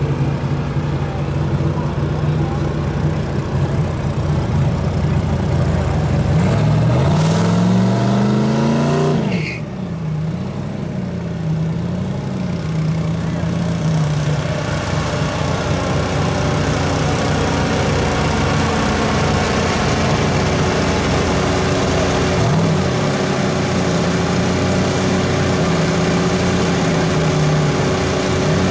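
Turbocharged Ford 5.0 V8 of a Fox-body Mustang idling with an uneven lope, revved up once for a few seconds about six seconds in, then dropping sharply back to idle. A short blip of the throttle comes later, and the revs start rising again right at the end.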